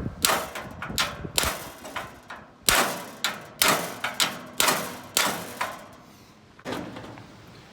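Hand hammer striking a rivet on a sickle knife section, with a bigger hammer held underneath as a backing anvil. About a dozen sharp metal-on-metal blows, roughly two a second, each ringing briefly; the last blow is lighter.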